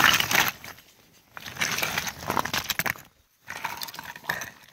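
Loose, brittle shale crunching and clinking in short uneven spells, with a brief hush about three seconds in.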